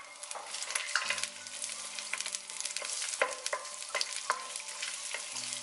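Sliced onion sizzling in hot oil in a wok, with a spatula clicking and scraping against the pan as the onion is stirred.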